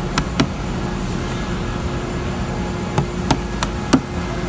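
Sharp clicks and taps of a utility knife blade working along the seam of a wooden door-panel bead, two near the start and four more, about three a second, in the last second and a half, over a steady background hum.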